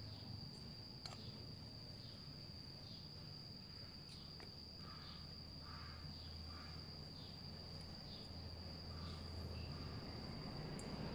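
A steady, unbroken high-pitched insect trill, with a few faint clicks from the aluminium angle-grinder gear housing being handled.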